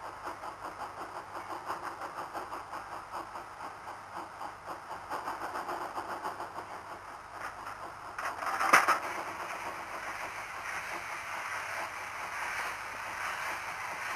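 Narrow-gauge steam locomotive 099 738-7 letting off steam with a quick rhythmic pulsing. About two-thirds of the way through there is a single brief, loud burst, followed by a steady hiss of steam as it begins to move off in a cloud of steam.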